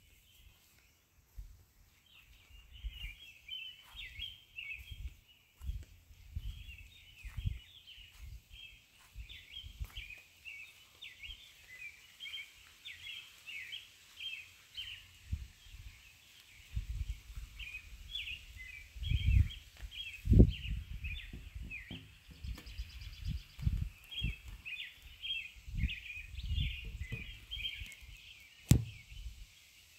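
Small birds chirping continuously in the background, over soft, irregular low thumps of dough being kneaded in a plastic bowl and then worked with a wooden rolling pin. There is one sharp knock near the end.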